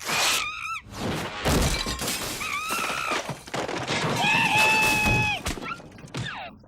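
Cartoon crashes of things breaking and shattering, several in a row, with a monkey's short high squeaky calls in between.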